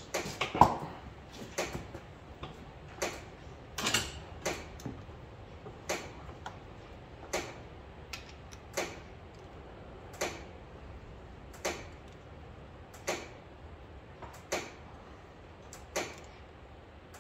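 Engine oil dripping from a tractor sump's drain hole into a catch container as it finishes draining: short sharp drips, one about every second and a half.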